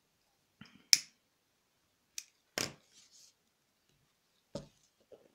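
Handling noises from a ribbon-embroidery piece on its frame: four sharp clicks and knocks with pauses between them, the loudest about a second in, as the ribbon is worked and the frame is lifted and turned.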